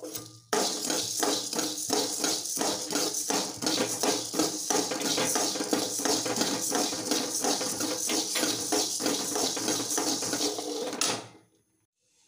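Coriander seeds being dry-roasted in a metal kadai, stirred with a metal spoon: the spoon scrapes the pan and the seeds rattle and hiss with each stroke, a few strokes a second. The stirring stops near the end.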